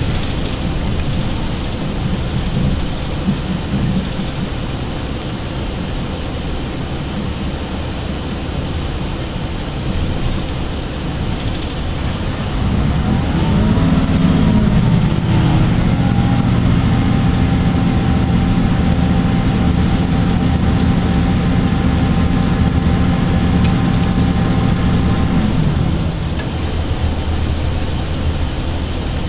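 Inside a Chiltern Railways Class 165 diesel multiple unit: steady rumble of the train running on the track. About halfway through, the underfloor diesel engine takes power, its pitch rising and dipping, then holds a steady drone until it drops back a few seconds before the end.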